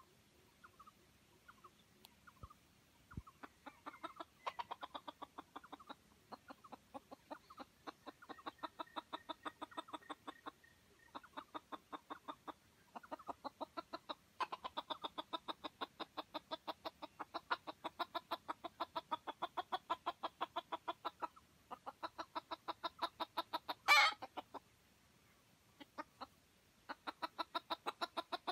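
Chicken clucking in long, rapid runs, several clucks a second, broken by short pauses, with one loud, sharp squawk near the end.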